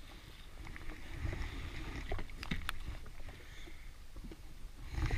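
Wind and choppy water around an anchored jet ski, a steady rumbling noise with no engine running, with a few small clicks and knocks from handling the fishing rod and reel, a cluster of them about halfway through.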